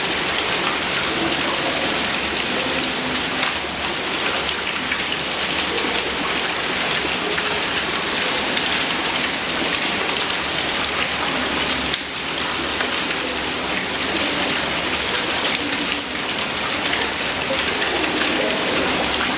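Running water of a cave streamway, rushing and splashing in a steady dense hiss.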